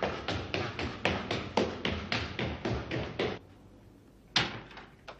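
Quick footsteps running up a staircase, about four steps a second, which stop a little over three seconds in. Near the end there is a single knock, like a wooden door or cupboard being shut.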